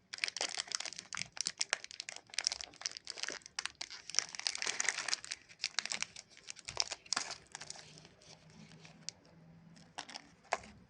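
Plastic wrapper of a Chupa Chups lollipop crinkling and crackling as it is handled and unwrapped. The crinkling is dense at first, then thins to a few sharp crackles near the end.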